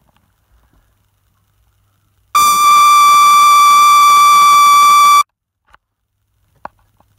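A loud electronic beep at one steady pitch, held for about three seconds, starting and stopping abruptly. A sharp click follows shortly before the end.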